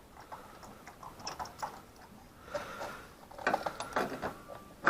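Ratchet clicking in short, irregular runs of ticks as a spark plug is unscrewed, the clicks coming thicker near the end.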